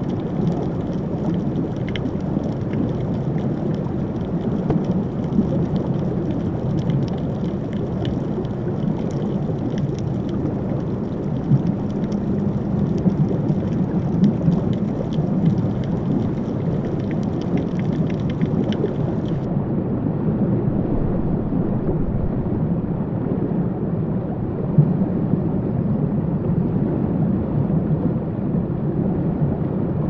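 Underwater ambience: a steady low rushing rumble of water noise, with faint crackling clicks over it. About two-thirds of the way through the crackle drops away and the sound turns duller.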